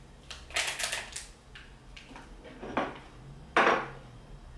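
Kitchen handling sounds: grated coconut shaken and tapped from a small plastic tub into a pot of batter, then a wooden spoon knocking and scraping against the pot as stirring begins. The loudest knock comes about three and a half seconds in.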